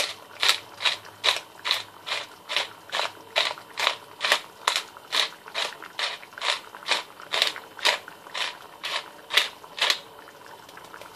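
Hand-twisted pepper mill grinding black peppercorns, a rapid series of even grinding strokes about two a second, stopping about a second before the end.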